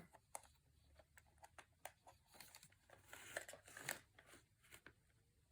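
Near silence, broken by faint, scattered clicks and light rustles of hands handling the plastic cordless phone, a little busier about three seconds in.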